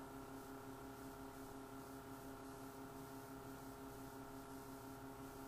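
Faint steady hum with a few fixed tones, and nothing else: quiet room tone.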